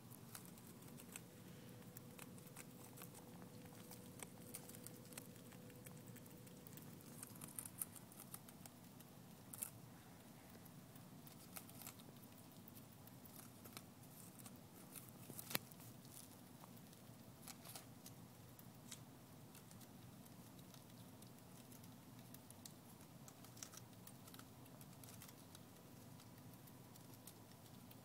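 Pet squirrel eating butterhead lettuce: faint, irregular crisp clicks and crunches as it bites and tears the leaves.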